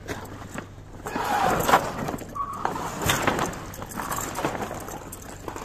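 Trailer's tarpaulin side curtain being pulled along its rail, rustling and scraping with a few clicks and a short squeak about two and a half seconds in, as its rollers catch in the track.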